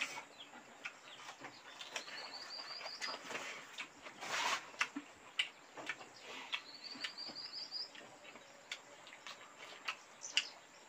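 A small bird sings a high, rapid trill that rises slightly in pitch, twice, about four seconds apart. Faint clicks and smacks of people eating rice by hand and with a spoon come between the trills, with a brief rustle about four seconds in.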